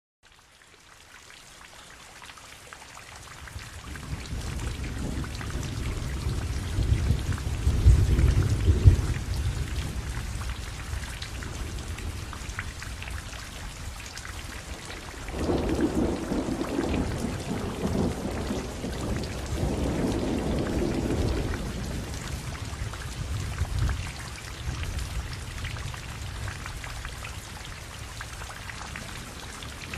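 Steady rain falling, with long rolling thunder. One roll builds to its loudest about eight seconds in, another rumbles on for several seconds from about halfway through, and a smaller one follows later.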